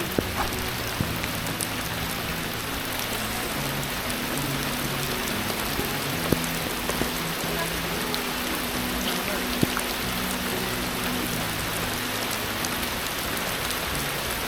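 Steady rain falling on camp tarps, an even hiss with a few sharp, louder drops striking now and then. Soft background music runs underneath.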